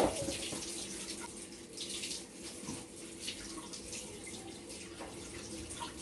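Water running from a tap and splashing steadily, with a single sharp knock right at the start.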